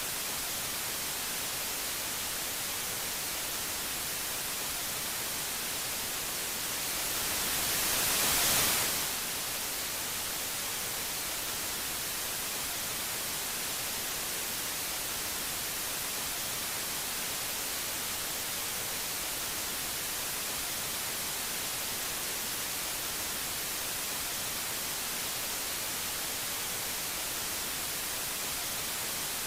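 Steady static hiss, swelling gradually louder from about seven seconds in and dropping back suddenly just before the nine-second mark, then steady again.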